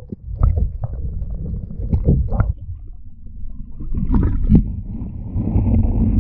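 A spotted bass being let back into the water from a kayak: knocks and handling bumps, then a couple of seconds of water swishing and splashing near the end, all over a low rumble on the action camera's mic.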